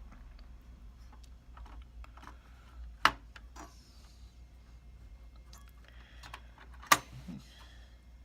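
Small clicks and handling noises of hands working at the CPU socket of an open Dell PowerEdge SC1430 server, with two sharp clicks about three and seven seconds in.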